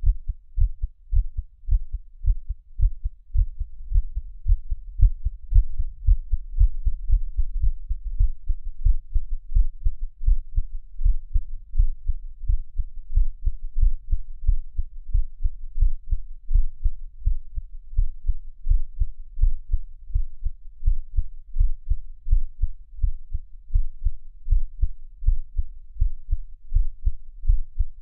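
A person's heartbeat, recorded up close: a steady, even run of low, dull beats with no other sound.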